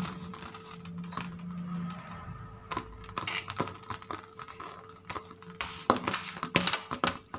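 A hand pressing and patting crumbly wheat-flour barfi mixture into a steel plate, with scattered light taps and clicks against the plate that come thicker and louder over the last couple of seconds.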